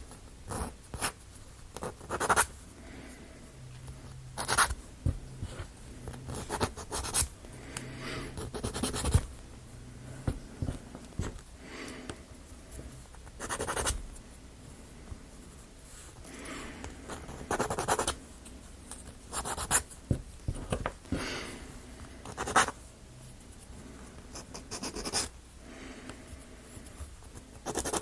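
Sandpaper rubbing on small plywood model parts in short, irregular strokes, with a few sharp clicks of the wooden pieces being handled.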